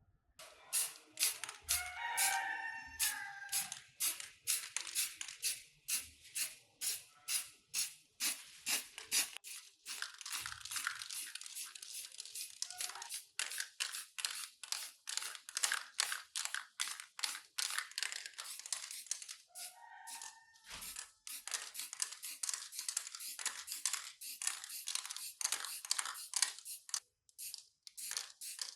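Rapid, rhythmic back-and-forth abrasive strokes on a surface, about two to three a second, with a brief squeak about two seconds in and again around twenty seconds in.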